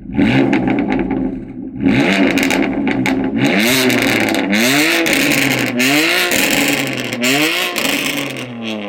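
BMW twin-turbo straight-six with an aftermarket exhaust being revved hard again and again: the engine note sweeps up and falls back about once a second, with sharp pops and crackles from the exhaust between the revs.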